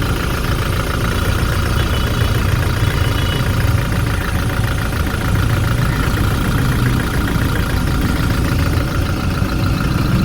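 Toyota Hilux 1GD 2.8-litre four-cylinder diesel engine idling steadily with its third injector switched off by a scan-tool cylinder cut-off test, so it runs on three cylinders.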